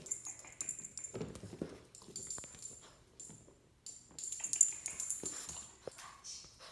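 Boxer puppy's claws and paws clicking and scrabbling on a tile floor as it plays, an irregular run of quick taps with one sharper knock about four and a half seconds in.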